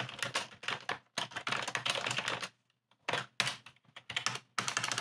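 Computer keyboard typing: quick runs of keystrokes broken by short pauses, the longest a brief gap about two and a half seconds in.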